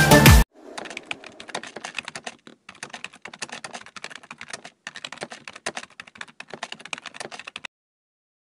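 Background music cuts off about half a second in, followed by a computer keyboard typing sound effect: quick, irregular key clicks with two short breaks, stopping abruptly near the end.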